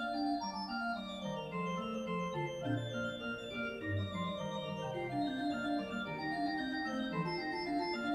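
Pipe organ playing a quick, busy passage of many short notes over held lower notes, with a falling run about a second in.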